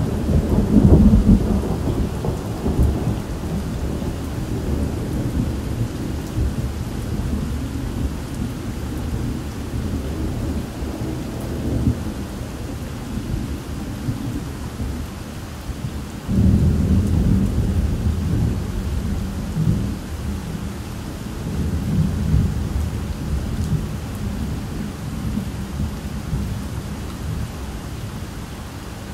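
Thunder rumbling over steady rain. A fresh peal breaks in suddenly a little past halfway and rolls on, slowly fading near the end.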